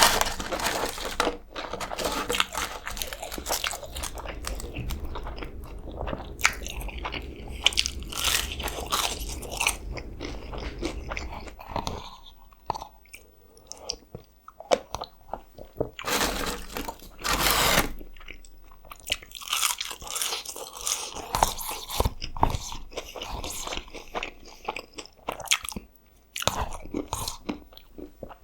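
Close-miked biting and chewing of fast food, a dense run of crunchy clicks and crackles from the mouth, with a brief quieter pause partway through.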